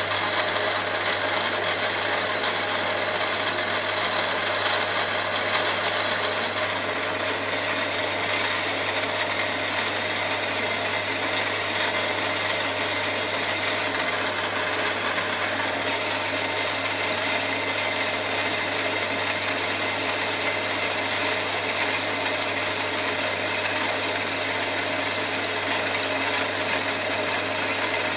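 Milling machine running steadily, its small end mill cutting into a solid aluminium block.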